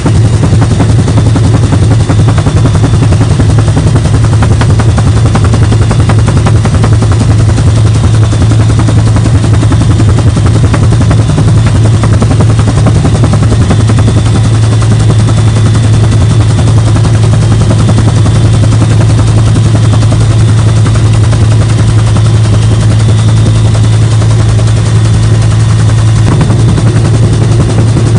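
Helicopter rotor and engine running steadily, heard from inside the cockpit: a loud constant low drone under a rapid, unbroken thudding beat from the blades.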